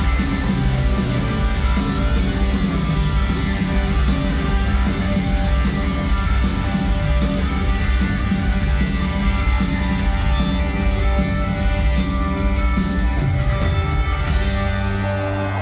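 Live rock band playing the closing bars of a song through an arena PA, heard from far back in the seats: electric guitars, bass and drums. The drum hits stop about a second before the end, leaving the guitars ringing.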